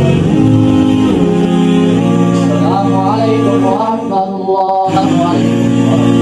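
Background vocal music: a male voice singing a slow melody with long held, gliding notes.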